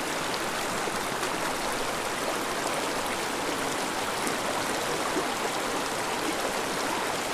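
Small mountain stream running over rocks: a steady sound of flowing water.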